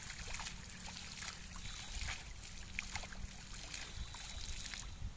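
Water splashing and dripping as a hand sweeps through shallow river water while a cast net is drawn in, a run of irregular small splashes that stops just before the end.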